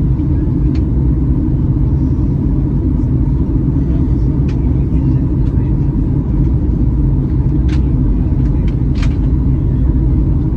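Steady low cabin rumble of a Boeing 737 MAX 8 in descent, jet engine and airflow noise heard from a window seat inside the cabin. A few faint clicks sound over it.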